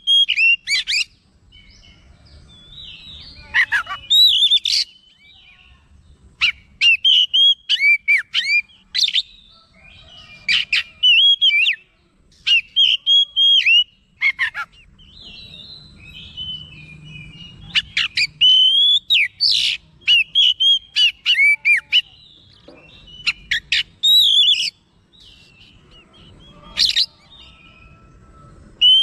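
Oriental magpie-robin singing: loud bursts of clear, varied whistles and chirps, each run a second or two long, with short pauses between them.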